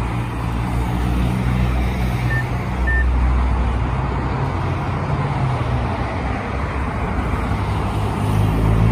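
Convoy of large black SUVs driving past close by, their engines and tyres making a steady rumble that swells and fades as each vehicle goes by. Two short high beeps about two and a half seconds in.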